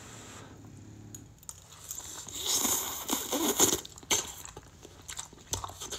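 Cup Noodles being slurped: a hissing slurp of noodles drawn into the mouth lasting about a second and a half, followed by a few small clicks and smacks of chewing.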